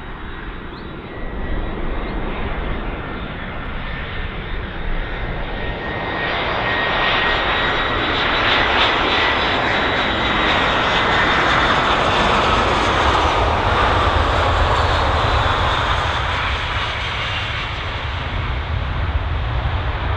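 Jet airliner passing close by. Its engine noise builds to a peak in the middle and then eases off, with a whine that slides down in pitch as it goes past.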